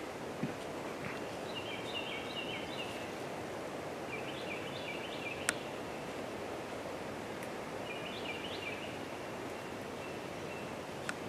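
Outdoor woodland ambience: a steady background hiss with three short bursts of quick, high chirping notes from a small bird, and a few faint clicks.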